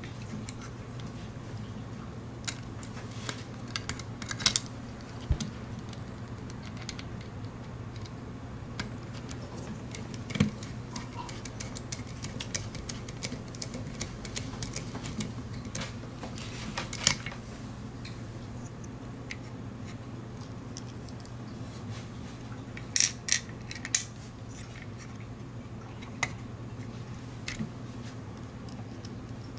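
Scattered small clicks and taps of hands handling a metal-and-plastic robot kit and a small screwdriver, with a few louder clicks here and there, over a steady low hum.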